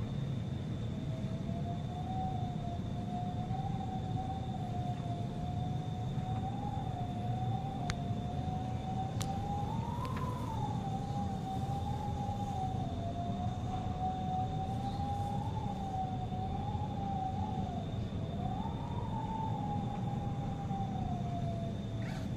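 Rainstorm wind and rain making a steady low rumble on the microphone. Over it a thin whistling tone wavers irregularly up and down without a break, with a faint steady high whine beneath.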